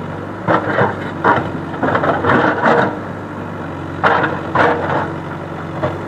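Backhoe loader's diesel engine running steadily, with a series of short clattering knocks as rocks and stones are worked by the machine, bunched in the first three seconds and again about four seconds in.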